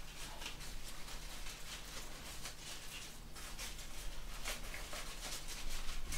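Faint rustling and light crackling of leaves and stems as a hand-tied bouquet of roses and eucalyptus is handled and adjusted, with many short irregular rustles over a steady low hum.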